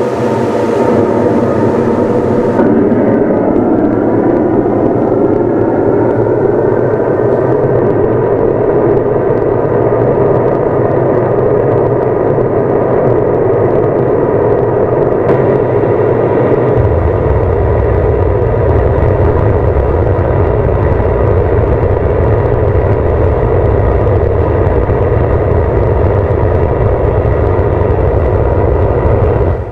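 Fairground PA speakers playing loud, dense, steady sound while the system is being tuned: the treble cuts out abruptly about three seconds in, and deep bass comes in abruptly around halfway.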